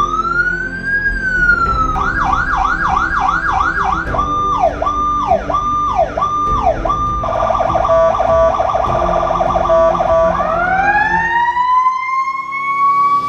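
Powercall UDX7 electronic emergency siren stepping through its tones. It starts with a slow rising and falling wail, then fast up-and-down yelp sweeps of about three a second. Next come repeated falling sweeps, then a rapid alternation between two pitches, and near the end a slow rise to a held high pitch.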